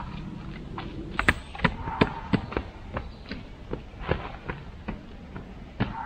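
Scattered sharp taps and knocks, about two or three a second, from concrete stamping work: workers on rubber texture mats pressing texture into a fresh stamped-concrete slab.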